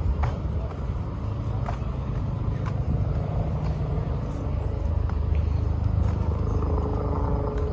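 Steady low rumble of outdoor city background noise, tagged as traffic, with faint light ticks now and then.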